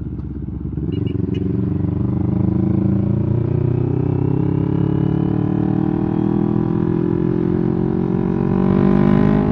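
CFMoto NK400's parallel-twin engine running through a newly fitted SC Project aftermarket muffler, its pitch rising slowly and steadily as the revs climb.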